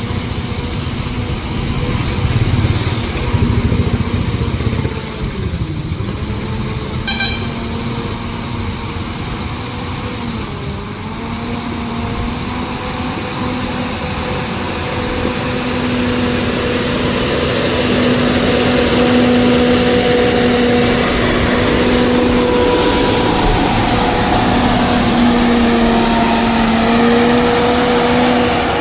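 Diesel engine of a SANY motor grader running under load, its pitch dipping briefly twice and then holding steadier and louder through the second half.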